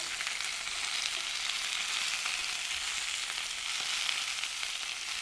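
Stuffed green capsicums sizzling steadily as they shallow-fry in oil in a nonstick pan, with a few light clicks from a fork and spoon turning them.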